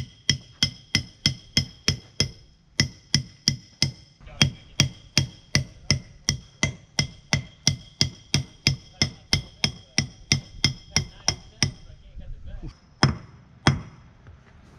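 Claw hammer striking the old cutless bearing, used as a drift, to drive a new cutless bearing into a sailboat's propeller-shaft P-bracket. Steady blows about three a second, each with a metallic ring, with two short pauses. The blows stop about twelve seconds in, then two harder strikes come near the end.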